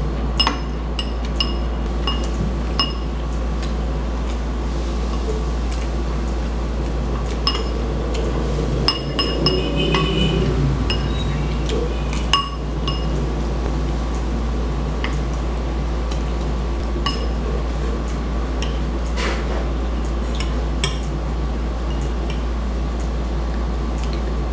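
Metal spoon and fork clinking and scraping against a bowl during eating: short ringing clinks come every second or two, more of them near the middle. A steady low hum runs underneath.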